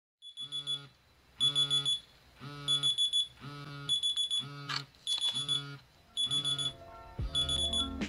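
Smartphone alarm ringing: a group of quick beeping pulses repeating about every second and a bit.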